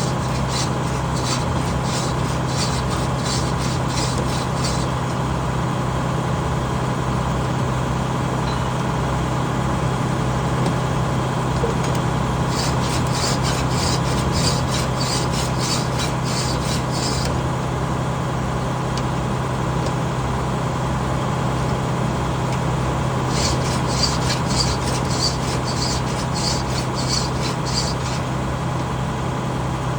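A hand file sharpening saw teeth: three bouts of quick, even strokes, each lasting four to five seconds, over the steady hum of an engine running.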